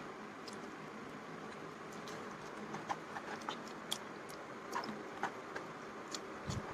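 A person chewing a mouthful of hot dry noodles, with faint, scattered wet mouth clicks and smacks.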